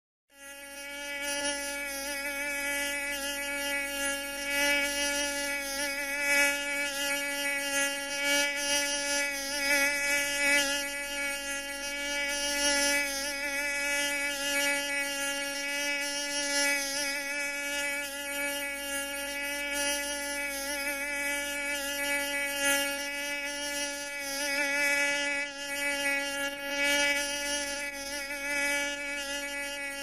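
Mosquito buzzing in flight: one continuous, steady-pitched whine of beating wings that swells and dips slightly in loudness.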